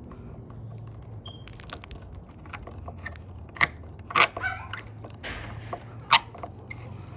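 Flat-head screwdriver working a screw in a metal weatherproof junction box: scraping and crunching with a few sharp clicks, the loudest about four seconds in and again near six seconds, over a low steady hum.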